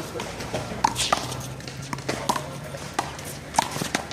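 Sharp slaps and pops of a one-wall handball rally: the rubber ball struck by hand and hitting the wall and ground. There are several separate hits, the loudest about a second in and again about three and a half seconds in.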